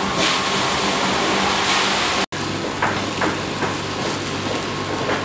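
Cooking noise: a steady sizzling hiss, broken by an abrupt cut a little over two seconds in, after which a utensil knocks sharply against the pot a few times.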